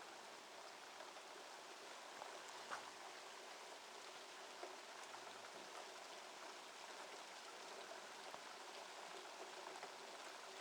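Faint, steady rain falling, with a few small drips ticking now and then.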